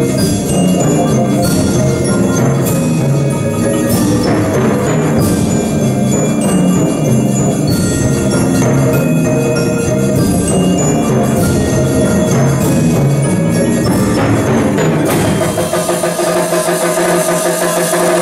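Percussion ensemble playing, with marimbas and tubular bells sounding among dense struck mallet notes. About 15 s in, the bass drops away and sustained, brighter ringing tones take over.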